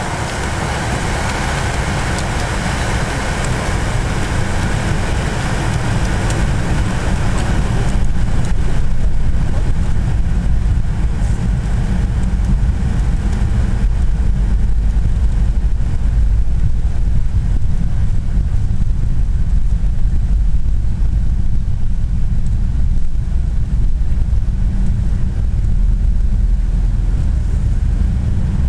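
Cabin noise of a Fokker 100 on its takeoff roll: the rear-mounted Rolls-Royce Tay turbofans spool up to takeoff power, the noise growing over the first eight seconds or so, then holding as a steady, loud low rumble.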